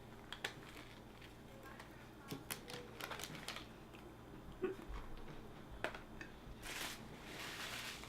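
A person chewing a sandwich close to the microphone: faint, scattered soft clicks and crunches at an uneven pace.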